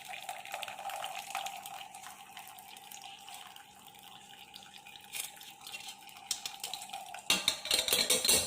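Hot coffee decoction being poured through a strainer, a steady trickle that thins out after a few seconds. Metal vessels clink several times near the end.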